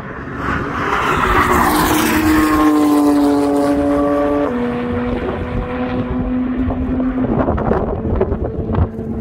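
Two sports cars at speed on a race track, their engines drawing near and running past, the engine note dropping sharply in pitch about halfway through as they go by. Wind buffets the microphone near the end.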